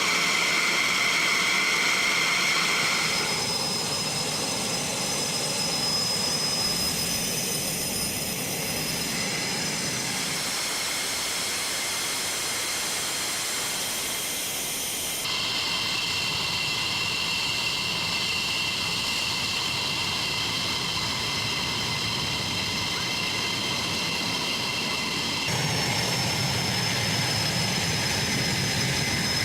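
Fighter jet engines running, with several high steady turbine whines over a rumble. The whine changes pitch abruptly a few times and starts to rise near the end as an engine spools up.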